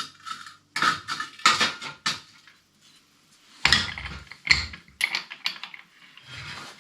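Pieces of metal knocking and clanking together as they are handled and set down, in a string of sharp separate clanks with a short lull in the middle.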